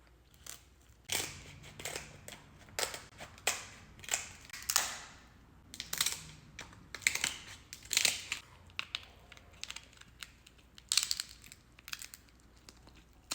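King crab shell being cut open, a series of irregular sharp cracks and crunches as the hard shell splits.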